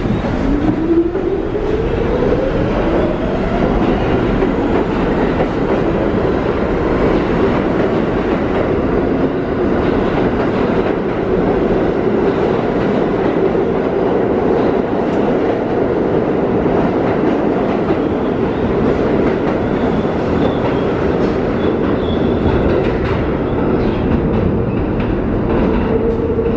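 R46 subway train pulling out of the station. Its traction motors whine, rising in pitch over the first few seconds, and then the steady loud running of the cars' wheels on the rails goes on as the train passes.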